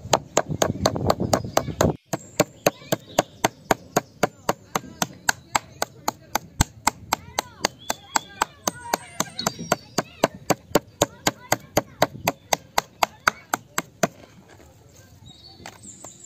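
Rapid, even chopping on a board, about four sharp strikes a second. The strikes pause briefly near the end, then pick up again.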